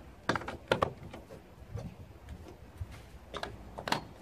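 Injection-moulded resin VersaChock cooler chocks being snapped into their deck-mounted base brackets: sharp plastic clicks and knocks, three within the first second and two more near the end.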